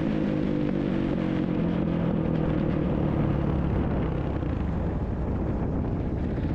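Dirt bike engine running under throttle. Its pitch shifts over the first couple of seconds, then it settles into a steadier low rumble.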